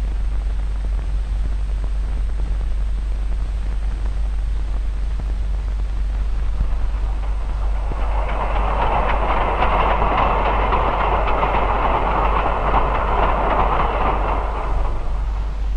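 Train passing, from about eight seconds in: the rumble and clatter of an electric locomotive and freight wagons on the rails, fading just before the end. Before it there is only the steady low hum and hiss of an old film soundtrack.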